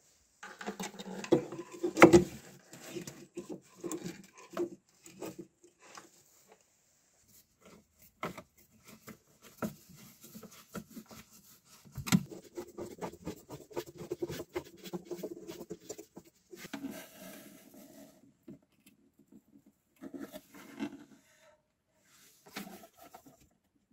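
Hands handling wires and parts inside a plywood speaker cabinet: scattered small clicks and knocks with bouts of rubbing and scraping, the loudest knock about two seconds in.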